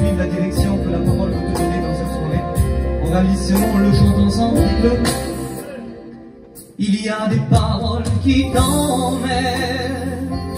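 French Christian hymn sung at a microphone over instrumental accompaniment with a steady beat. The music fades down about six seconds in and comes back abruptly just before seven seconds.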